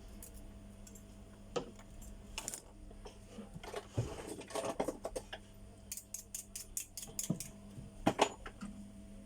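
Small hand tools clicking, tapping and scraping against a smartphone's parts while its charging connector is being repaired. Scattered light clicks, a quick run of about eight clicks past the middle, and a sharper knock near the end.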